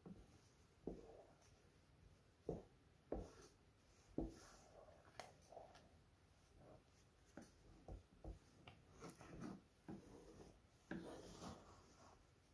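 Wooden spoon stirring thick rice pudding in a metal pan: irregular scrapes and soft knocks of the spoon against the pan's bottom and sides, a dozen or so, spaced unevenly.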